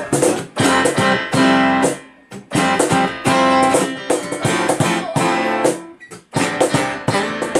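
Acoustic guitar strumming chords with a keyboard, the band playing rhythmic chords that break off briefly about two seconds in and again about six seconds in.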